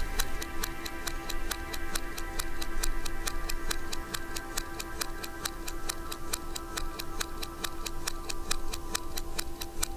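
Background music with fast, even ticking over a held chord.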